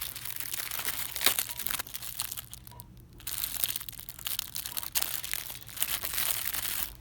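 Crinkly packaging being handled and crushed, in two stretches with a short pause about two and a half seconds in.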